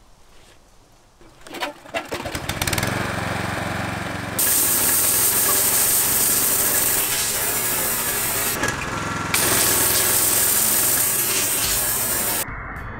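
Gas-engine pressure washer started up, its small engine catching about two seconds in and running steadily. Over the engine, the 3000 PSI water jet hisses as it blasts a banana on concrete; the hiss stops briefly midway and cuts off shortly before the end.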